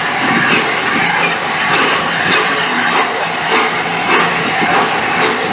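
Steam-hauled train of passenger coaches rolling past and away behind LNER A4 Pacific locomotive 60009 Union of South Africa: a loud, steady rush of wheels on rail with steam hiss.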